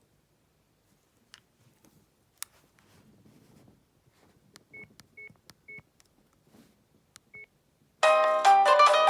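Sony Ericsson S312 mobile phone: faint clicks and four short beeps as it is browsed, then about eight seconds in one of its built-in ringtones starts playing loudly as a melody.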